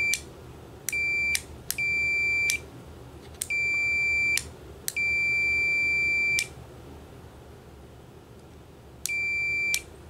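Digital multimeter's continuity beeper sounding in five uneven beeps, some about half a second and one about a second and a half long, with irregular gaps and a long silence before the last. The beeps cut in and out because the old keyboard power switch's contacts make and break intermittently: the switch is failing.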